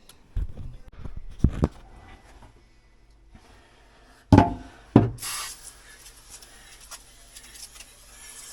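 A run of knocks and handling noise, then two loud thumps about half a second apart, after which a steady rushing hiss sets in with a low hum beneath it.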